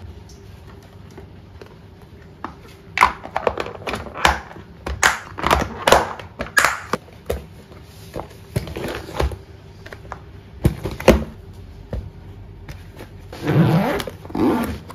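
Plastic food-container handling: a run of sharp clicks and knocks as a lid is pressed on and its clip latches snapped shut and the box is set down. Near the end a longer scraping run as the zipper of a fabric insulated lunch bag is pulled closed.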